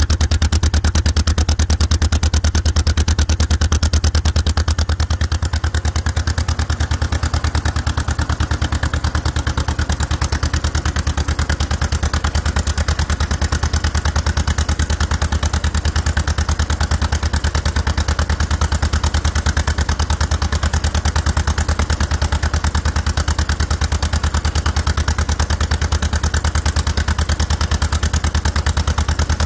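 1954 John Deere 40's two-cylinder engine idling steadily while warming up from a cold start, with an even, rapid exhaust beat from its upright muffler stack. The level drops slightly about five seconds in.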